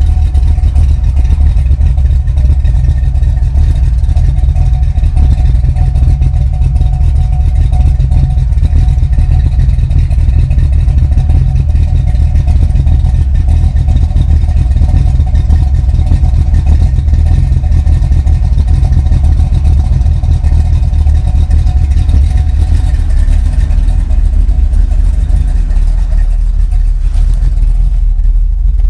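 A 1989 Mustang GT's 331 cubic inch stroker small-block Ford V8 idling steadily and loudly on a cold engine, heard from the rear of the car near the exhaust, with a deep, even rumble.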